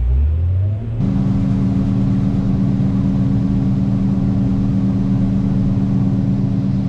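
John Deere 9660 STS combine's engine speeding up, then about a second in the unloading auger kicks in and the machine settles into a loud, steady drone with a rushing hiss of grain being augered out to unload the full hopper.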